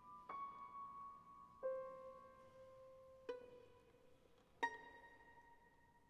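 Quiet, sparse contemporary chamber music for soprano saxophone, violin and piano: four single high notes, each with a sharp attack, about a second and a half apart, each ringing on until the next.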